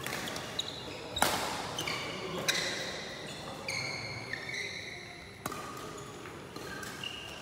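Badminton rally: a shuttlecock struck by rackets four times, sharp cracks a little over a second apart, with high squeaks of shoes on the court between the hits.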